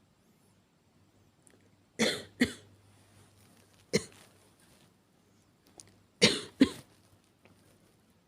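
A woman coughing: a quick double cough about two seconds in, a single cough about two seconds later, and another double cough near the end. The coughs are acted, not from real illness.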